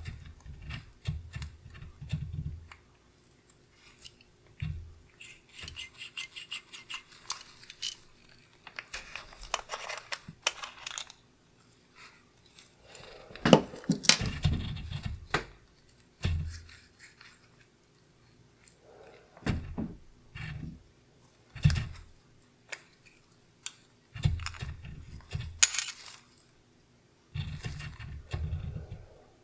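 Gloved hands handling the parts of a pocket watch: irregular small metal clicks and clinks as the bezel comes off the case and the crystal is worked free of it, mixed with glove rubbing and soft handling bumps, in short clusters with quiet gaps between.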